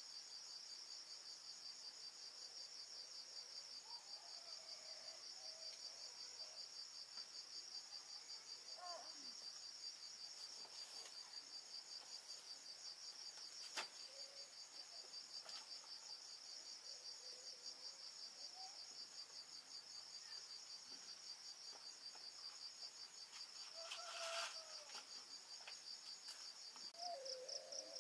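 Steady high-pitched chorus of insects trilling in rapid pulses, cricket-like. A single sharp click comes about halfway through, and a brief rustle comes near the end.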